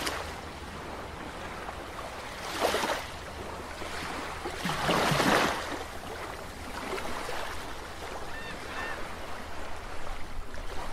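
Underwater ambience sound effect: a steady wash of water-like noise with two swelling whooshes, about two and a half and five seconds in, the second the louder, and a few faint chirps near the end.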